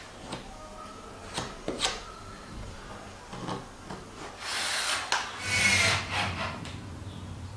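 Wooden frame battens knocking and sliding against each other on a workbench, then a cordless drill running briefly as it drives a screw into a batten, a little after the middle.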